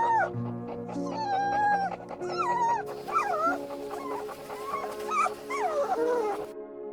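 A dog whimpering and whining in a string of short, high, wavering cries over soft, sustained background music. The whining stops abruptly near the end, leaving only the music.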